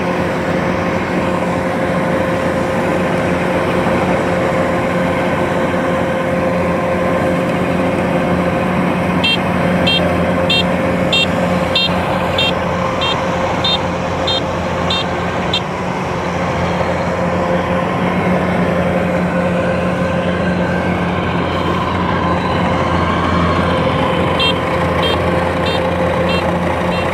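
Rice combine harvester's engine running steadily at working speed. A high electronic beep repeats about twice a second for several seconds in the middle and again near the end, the harvester's reversing alarm.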